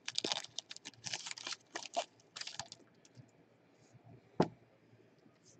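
Gloved hands handling a foil trading-card pack and its cards: a run of quick crinkling and rustling for about the first three seconds, then a single sharp tap about four and a half seconds in.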